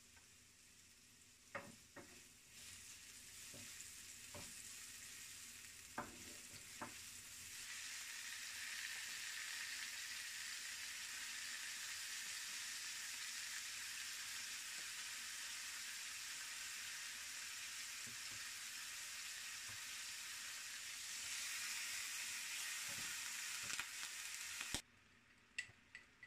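Chopped onion and chicken pieces sizzling in hot oil in a nonstick frying pan, with occasional sharp knocks of a wooden spatula against the pan. The sizzle grows louder about a third of the way through and cuts off abruptly near the end.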